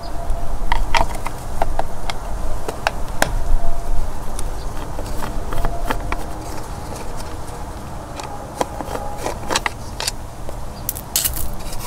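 Screwdriver working out the cover screws of a Pentair CVA-24 valve actuator: irregular clicks and taps of the metal tool on screws and the plastic housing, over a steady low rumble.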